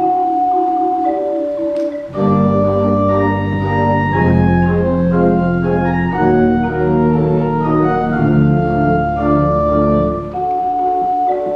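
Organ music: a small wooden OrgelKids pipe organ holds high flute-like notes, and about two seconds in the full organ joins with sustained chords over deep bass. Near the end the bass chords drop out, leaving the higher notes.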